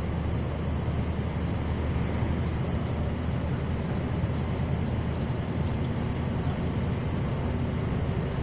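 Heavy truck and full trailer, loaded to about 64 tonnes and cruising at around 70 km/h, heard from inside the cab: a steady low engine drone under road and tyre noise.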